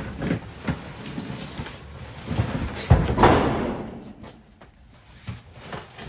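A box being handled and flipped over: scattered knocks and rustling, with a loud scraping thud about three seconds in.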